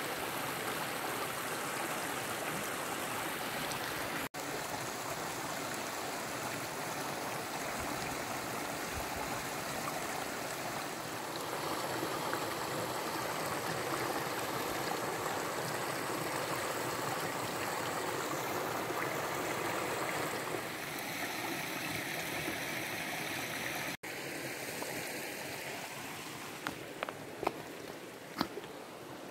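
Steady rush of a flowing stream, broken twice by sudden cuts. In the last few seconds the water is quieter and a few sharp clicks sound over it.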